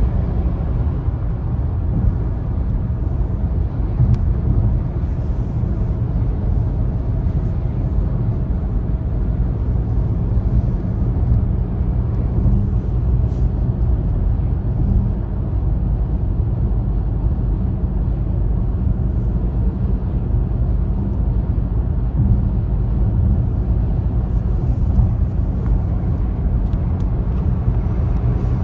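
Steady car road noise heard from inside the cabin at motorway speed: a loud, low, even drone of tyres and engine, with a few faint ticks now and then.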